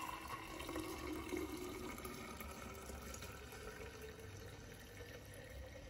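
Milk mixture for homemade raib (yogurt) poured in a steady stream from a saucepan into a glass jug, with a faint note that rises slowly as it goes.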